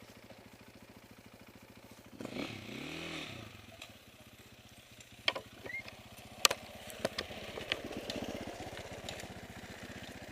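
A motorcycle engine running, revved up and back down once about two seconds in, followed by several sharp clicks and knocks over the steady engine noise.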